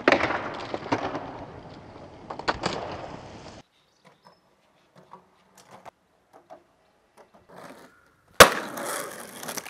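Skateboard on concrete: a loud clack as the board hits a flat bar at the start, then the wheels rolling, with a few more clacks. After a sudden cut there are only faint ticks, then a loud landing about eight seconds in and more rolling.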